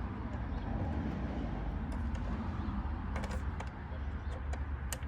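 Low steady hum and faint hiss from a portable radio-cassette player's speaker with no broadcast coming through, with a few light clicks about three seconds in and near the end.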